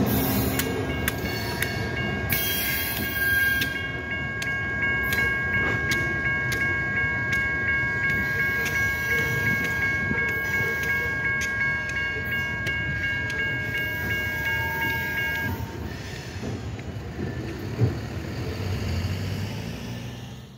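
Train rolling through a road grade crossing, wheels and cars rumbling and clattering. A train horn holds a steady multi-tone chord from about two seconds in until about fifteen seconds. The sound then fades, with a single thump near the end.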